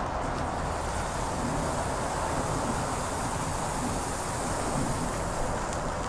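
Steady hiss of a lit JCWT firecracker's fuse burning down, with the firecracker going off in a loud bang right at the end.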